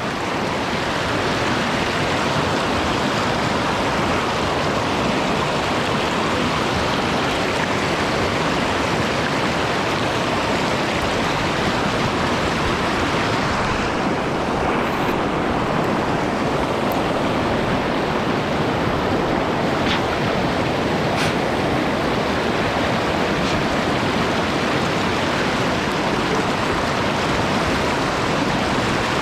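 Fast-flowing mountain stream running steadily, a constant rush of moving water.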